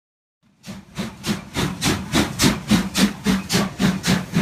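Steam locomotive exhaust chuffing in an even rhythm of about four beats a second, cutting in suddenly about half a second in.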